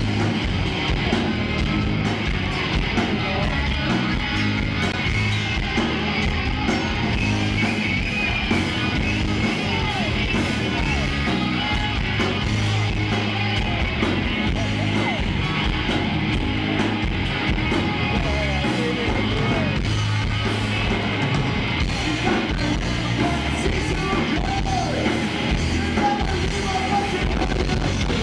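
A live rock band playing hard rock loudly on electric guitar and drums, with gliding, bending pitches in the lead line.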